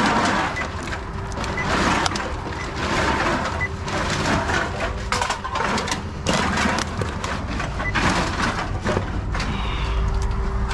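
TOMRA reverse vending machine taking in drink cans and plastic bottles: containers rattle and clatter through the intake one after another, over a steady machine hum.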